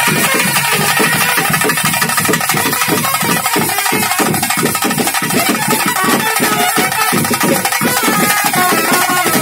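Traditional Bhuta Kola ritual music: drums beating a fast, steady rhythm while a wind instrument plays a wavering, held melody over them.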